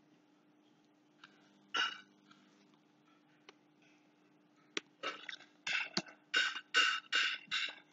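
Computer keyboard typing: a single keystroke about two seconds in, then a quick run of keystrokes, about three or four a second, through the second half. A faint steady electrical hum runs underneath.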